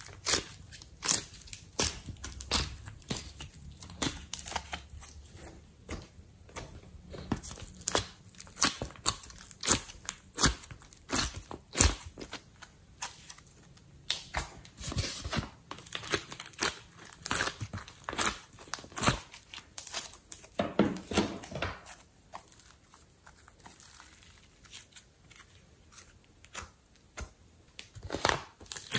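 Slime being pressed and peeled out of the cells of a plastic ice cube tray by hand: irregular sticky crackles and pops with tearing sounds, thinning out for a few seconds near the end.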